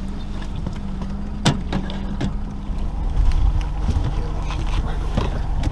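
Boat motor running with a steady hum over a low rumble, with a couple of sharp knocks. About three seconds in the hum stops and gives way to an uneven low rumble of the boat on the water.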